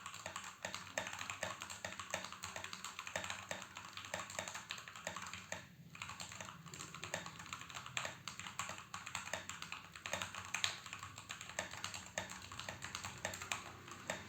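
Fast typing on a Keychron K8 Pro mechanical keyboard: a dense, continuous run of key clacks, with a brief pause about six seconds in.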